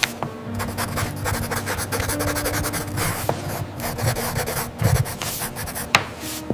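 Pencil scratching and rubbing on paper in quick repeated strokes, as in sketching and shading.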